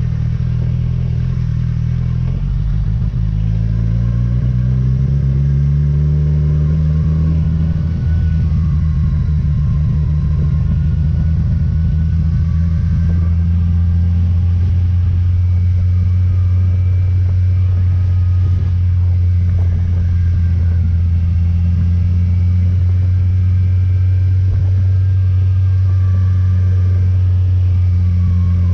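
Motorcycle engine under way, its pitch rising as it accelerates over the first several seconds, then holding a steady low drone at constant speed.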